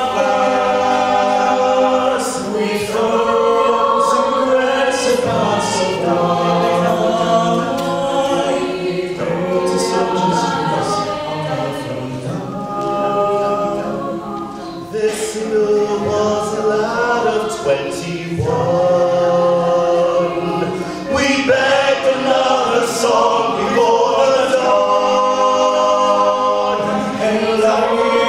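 Mixed a cappella choir singing slow, held chords with no instruments, the voices changing pitch together every second or two.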